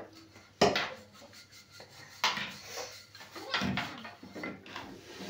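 Cooking utensils knocking and clattering while a roti is cooked on a flat iron tawa over a gas stove: a few sharp knocks with softer scraping and rattling between them.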